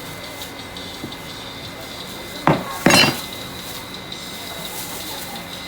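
Two sharp clattering knocks of kitchenware about half a second apart, some two and a half seconds in, the second ringing brighter.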